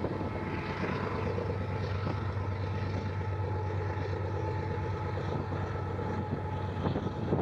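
Diesel locomotives hauling a freight train in the distance, a steady low engine drone.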